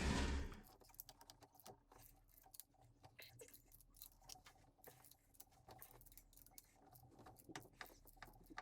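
Faint, irregular clicks and taps of hand tools working on the engine, over a faint steady hum.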